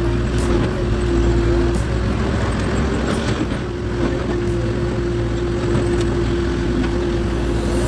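Excavator log loader's diesel engine and hydraulics running steadily while the machine swings, heard from inside the operator's cab, with a constant low rumble and a steady humming tone.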